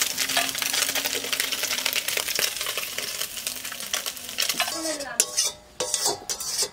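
Small amudi fish frying in hot oil in a kadai: a steady sizzle with scattered clinks of a utensil against the pan. The sizzle falls away about four and a half seconds in, and a couple of short pitched calls follow near the end.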